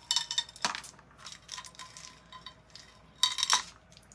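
Small beads clicking and clattering against each other as they are handled and threaded onto a string, in two short flurries: one at the start and a louder one about three seconds in.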